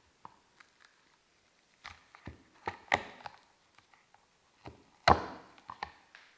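Silicone donut mould being handled on a wooden board and a cavity pushed up from underneath to release a chocolate ring: a string of soft knocks and crackles, the loudest about five seconds in.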